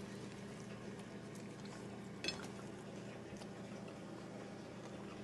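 A person chewing a bite of a bacon and omelette sandwich on a brioche bun: faint soft clicks over a steady low hum. One sharper click comes a little over two seconds in.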